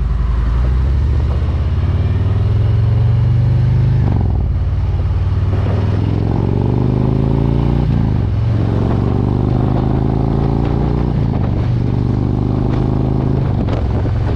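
Harley-Davidson Road Glide's V-twin engine pulling as the motorcycle accelerates up through the gears. Its pitch climbs steadily, then drops sharply with each upshift, three times.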